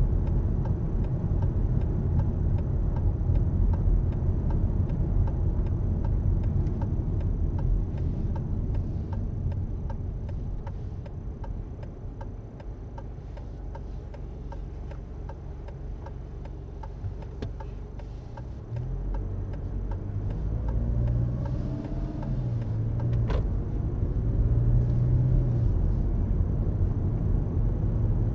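Car engine and road noise heard from inside the cabin, with the turn indicator ticking evenly. The engine quietens to near idle for several seconds, then rises and climbs in pitch as the car pulls away about two-thirds of the way through. A single sharp click follows soon after.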